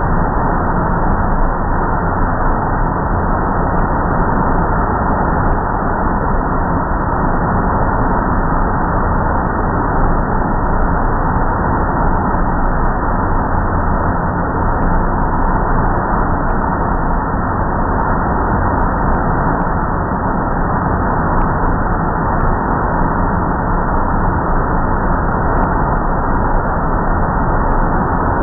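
Automatic car wash's overhead air-dryer blowers running, a loud, steady rush of air that does not change.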